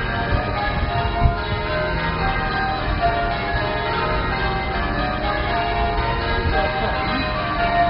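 Church tower bells ringing continuously, with many strokes overlapping and their tones sustaining into one another. A short low bump about a second in.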